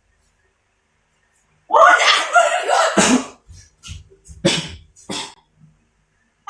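A person sneezing loudly, a drawn-out voiced build-up ending in a sharp burst about three seconds in, followed by several short coughs about every half second.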